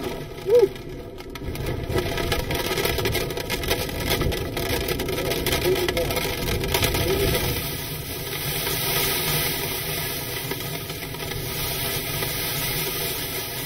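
Hurricane wind gusting and driving rain against a vehicle, heard from inside it. It is a steady rush, and the high hiss grows stronger in the second half.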